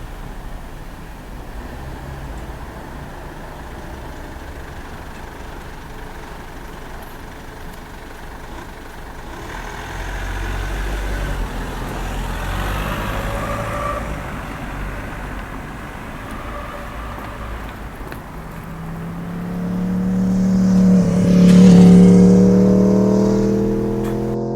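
Street traffic with a steady low rumble. Near the end a motor vehicle passes close by, its engine tone building to the loudest point about three seconds before the end, then fading away.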